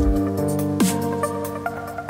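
Electronic dance music in a dubstep style: a heavy bass hit with a falling pitch drop as it begins, then sustained synth chords.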